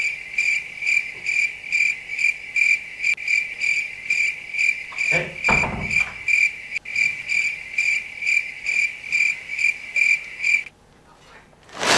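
Cricket chirping sound effect: a steady pulse of high chirps, about two to three a second, that cuts off suddenly near the end. A short low sound comes about five seconds in.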